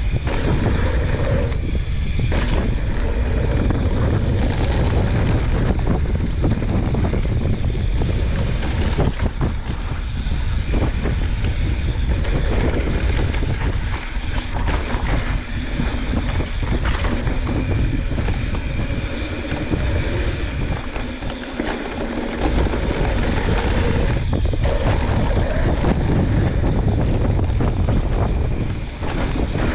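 Wind buffeting the camera microphone over the rolling noise of a YT Jeffsy 29 mountain bike's tyres on a fast dirt trail descent. Frequent knocks and rattles come from the bike over bumps, and the low rumble eases briefly about two-thirds of the way in.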